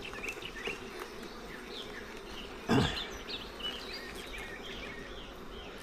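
Honeybees buzzing steadily around an open hive during an inspection, with a brief louder sound about three seconds in.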